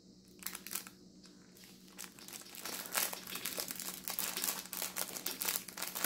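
Small clear plastic bag crinkling as it is handled with a beaded bracelet inside: a few crinkles about half a second and a second in, then denser, louder crinkling from about two seconds on.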